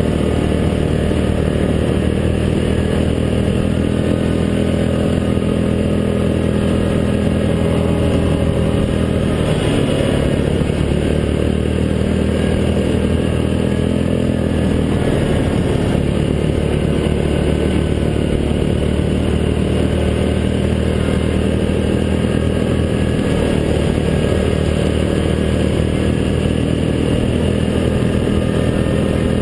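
Yamaha Grizzly 700 ATV's single-cylinder four-stroke engine running under way along a trail, its pitch shifting slightly with the throttle around the middle.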